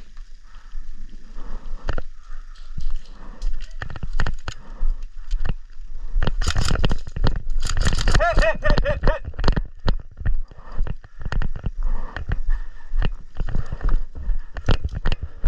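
Running footsteps and gear clattering close to the microphone, in quick regular steps. A voice calls out briefly about eight seconds in.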